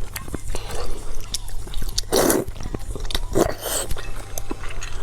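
Close-miked eating: chewing with many small wet clicks and smacks, and two louder noisy mouthfuls about two and three and a half seconds in.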